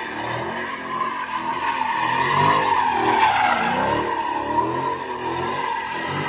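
Dodge Challenger doing donuts: the rear tires squeal steadily while they spin and smoke, and the engine pitch rises and falls over and over with the throttle.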